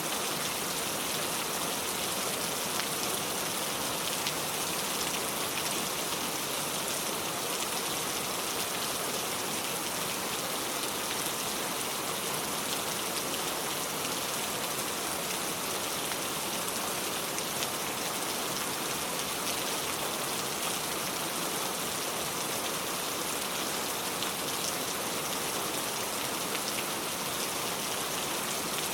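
Steady rain falling, an even hiss of many drops with fine scattered patter on a surface.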